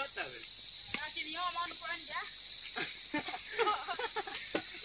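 Steady high-pitched drone of insects, with children's voices calling out now and then and a couple of short sharp knocks.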